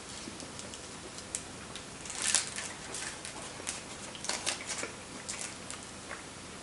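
Crinkly twist wrapper of a Lindor chocolate truffle being unwrapped by hand, a run of irregular crackles loudest about two seconds in, with more bunches of crinkling later on.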